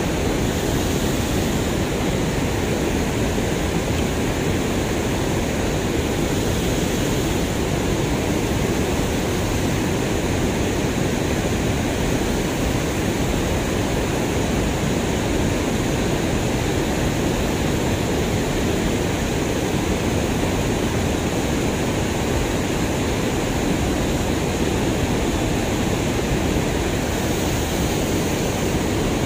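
Steady rush of water pouring over a concrete weir and churning white just below it, an even, unbroken noise.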